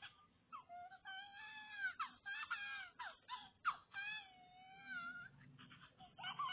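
High-pitched whimpering and whining cries: a run of short, sharp yelps that fall in pitch, mixed with longer wavering whines, then a quieter stretch near the end.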